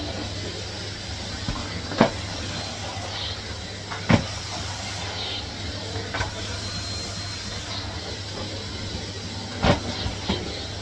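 Hisense washing machine on its spin cycle: a steady low hum and a hissing rush, with a sharp knock from the drum about every two seconds.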